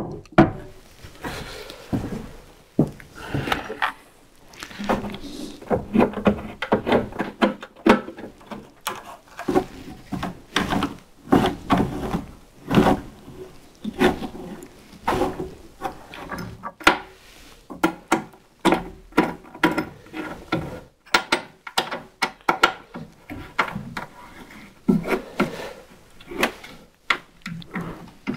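Wooden parts and bar clamps being handled and set against a wooden cabinet: many short knocks and clacks at irregular intervals.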